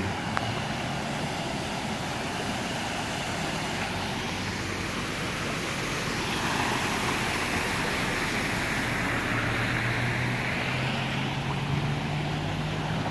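Floodwater rushing steadily across a road, with a car driving through it: the hiss of tyres through water swells about halfway through and fades again, and a low engine hum sets in toward the end.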